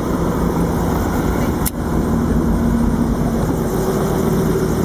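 Helicopter engine and rotor running steadily, heard from inside the cabin, with a single sharp click a little under two seconds in.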